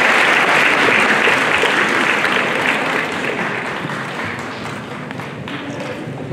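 Crowd applauding, the clapping dying down over the second half.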